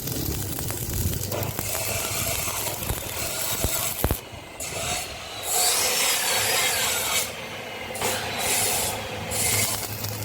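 Metal scraping and rasping that starts and stops several times, with faint squeaky glides, from work on or movement of a steel gate's bottom pivot.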